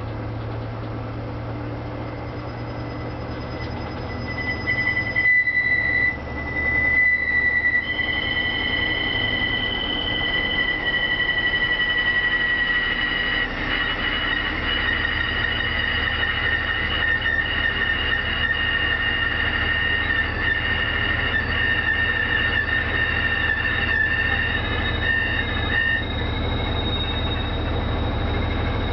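Panasonic NA-F7AE5-S fully automatic washing machine spinning: a low motor hum, joined about five seconds in by a loud, high-pitched squeal that holds on, sinking slightly in pitch. This is the abnormal spin-cycle noise that the repair traced to a faulty clutch.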